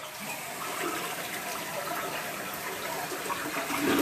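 Toilet flushing: a steady rush of water from the freshly rebuilt tank swirling through the bowl and draining.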